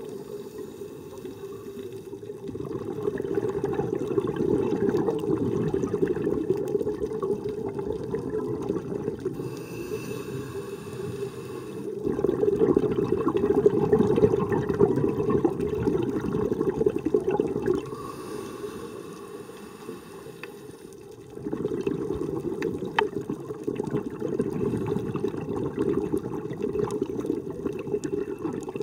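Scuba diver breathing underwater through a regulator: low rushing of exhaled bubbles in swells several seconds long, with quieter pauses between breaths.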